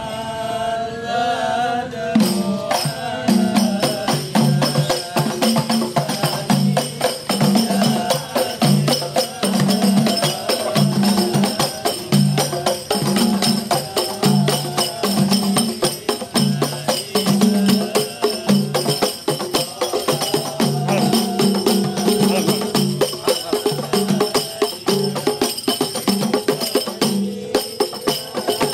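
A group of rebana frame drums played by hand, starting about two seconds in and keeping up a steady repeating beat of two alternating drum tones. Before the drums begin, a voice chants a short line.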